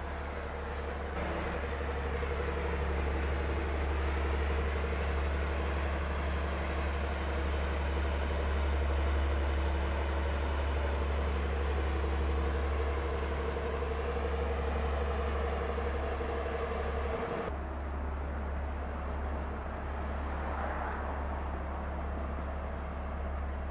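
Steady low rumble of ships' diesel engines, with a droning hum on top. The hum and the hiss above it cut off suddenly about seventeen seconds in, leaving the low rumble.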